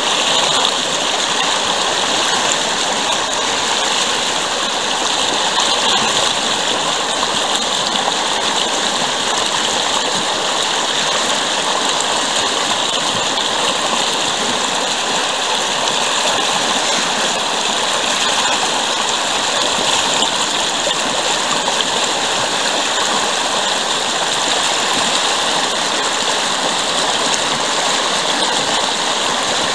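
Stream water rushing and splashing white over a rock ledge in a small rapid, a steady loud hiss.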